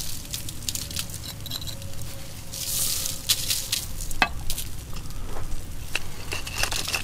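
Thick steak searing over very hot coals: sizzling with scattered crackles and pops, and a louder hiss about three seconds in.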